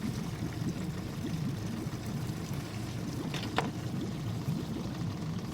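Outboard boat motor idling as it warms up, a steady low rumble with water trickling and splashing. A brief squeak about three and a half seconds in.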